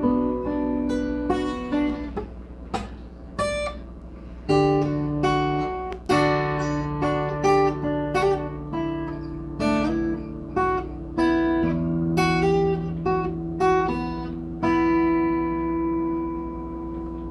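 Guitar played by hand: single plucked notes and chords, each ringing out and fading, ending on a long held chord. A steady low hum lies underneath.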